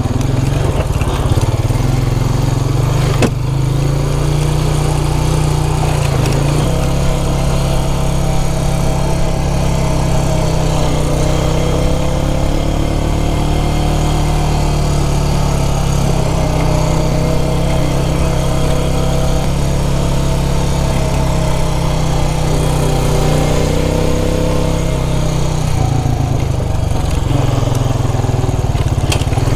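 Quad (ATV) engine running, its pitch rising and falling with the throttle, with one sharp knock about three seconds in.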